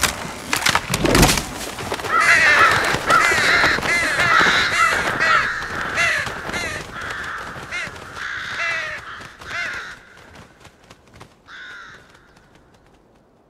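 A flock of crows cawing, many calls overlapping, then thinning out and fading, with one last call near the end. A few sharp cracks come before the calls begin.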